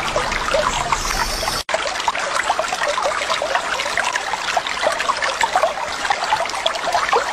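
Water trickling and babbling like a small stream, a dense run of small gurgles and drips, with a brief dropout about one and a half seconds in.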